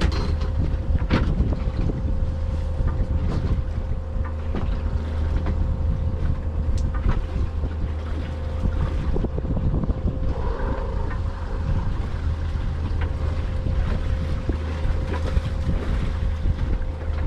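A small fishing boat at sea: a steady low hum with a steady mid-pitched tone from its machinery, wind buffeting the microphone, and scattered knocks.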